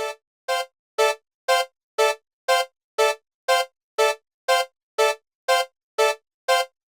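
Japanese railroad crossing alarm ringing its steady 'kan-kan' dings, about two a second, evenly spaced and unchanging.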